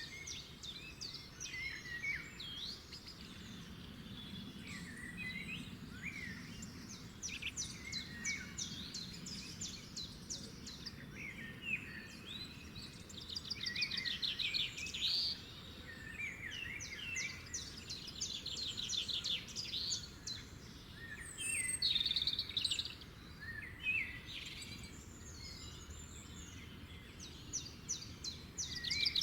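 Songbirds singing and chirping, with repeated fast trills and short whistled notes from several birds, over a faint steady background hiss.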